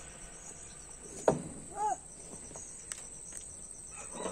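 Insects trilling steadily in a high, even whine, with a single sharp knock about a second in and a brief rising-and-falling call just after.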